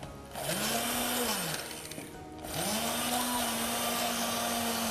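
Hand-held immersion blender puréeing cooked potatoes in a metal saucepan. The motor spins up, runs for about a second, winds down, then runs again steadily for the last two seconds or so.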